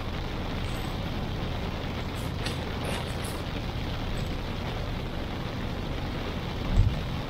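Steady hiss of heavy rain and wet road noise over the low rumble of a car driving, with one low thump near the end.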